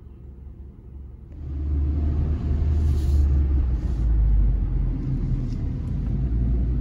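Car cabin noise while driving through a hairpin bend on a steep mountain road: a steady low rumble of engine and tyres, quieter at first and much louder from about a second and a half in.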